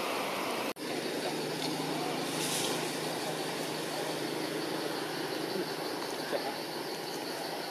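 Steady outdoor background noise with a low hum like a running engine or distant traffic; it drops out for an instant under a second in.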